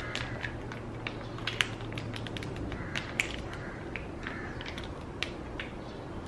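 A spatula scraping and tapping against a small glass bowl while scooping out a thick white sauce, giving a scatter of sharp clicks over a steady low hum.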